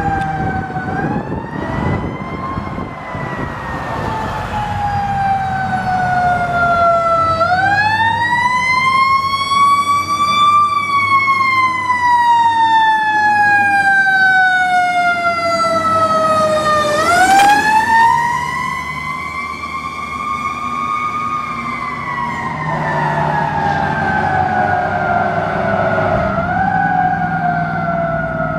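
Fire engine siren in a slow wail, rising and falling in pitch about three times. Each rise is quicker than the long glide down, over steady vehicle rumble.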